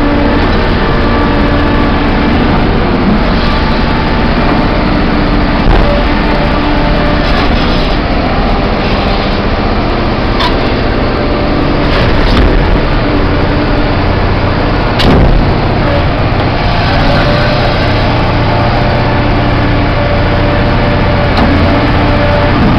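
CAT 5130B hydraulic mining shovel's large diesel engine running steadily under load as the machine moves, with steady whining tones over the engine. A few metal clanks cut through, the loudest about fifteen seconds in.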